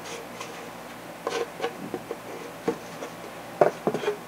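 Scattered light clicks and knocks of handling at the bench, loudest in a quick cluster near the end as the glued foam wing is laid flat on the glass bench top and its epoxied centre joint squeezed together.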